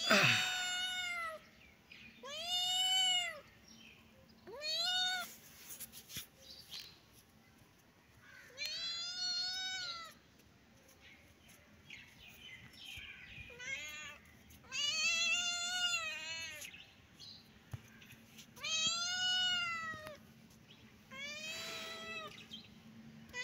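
Tabby-and-white kitten meowing repeatedly, about eight high calls a few seconds apart. Each call rises and then falls in pitch.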